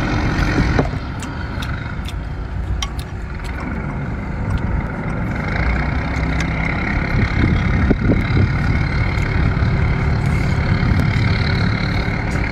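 An engine running steadily at idle, a low continuous rumble, with scattered small clicks over it.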